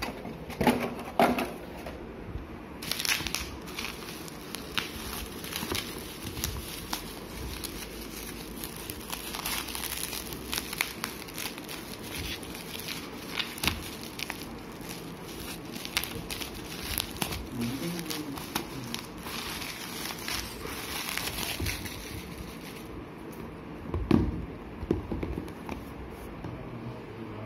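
Bubble wrap rustling with many small clicks as it is pulled off a smartphone box, with a louder knock near the end.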